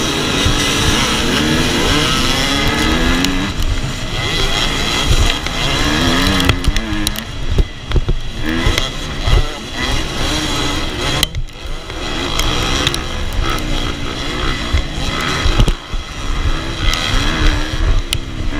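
KTM 250 SX two-stroke motocross bike racing hard, the engine note climbing through the revs and dropping again over and over as the rider works the throttle and gears, with the throttle briefly cut twice.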